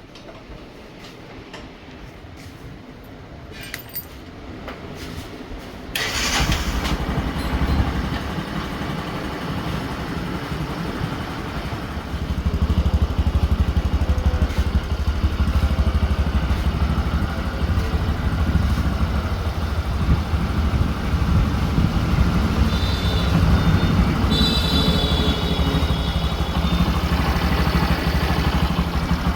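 A few light clicks, then a Bajaj Discover 125's single-cylinder four-stroke engine starts about six seconds in and runs steadily, getting louder about twelve seconds in.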